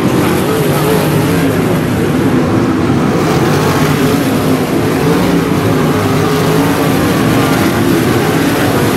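Several 305 sprint cars running around a dirt oval, their V8 engines drawing a steady din with engine notes that rise and fall as the cars pass and go through the turns.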